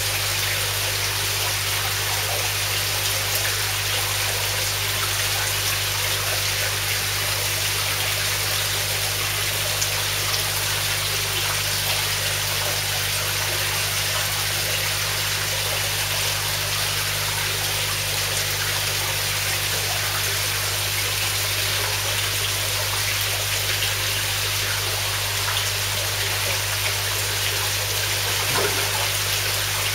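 Steady running, trickling water in a koi pond, with a low steady hum underneath.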